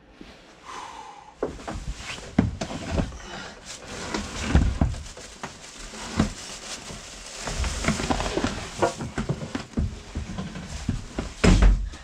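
Irregular knocks, thumps and rustling as a person clambers out of a boat's built-in icebox, body and clothing bumping against the icebox walls and counter rim, with a heavier thump near the end.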